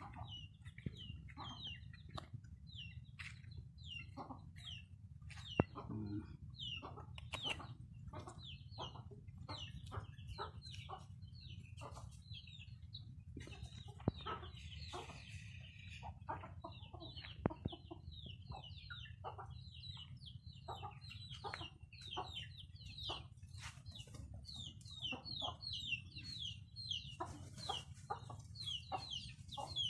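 Native chickens clucking, with a run of short high notes repeating every second or so over a low steady rumble.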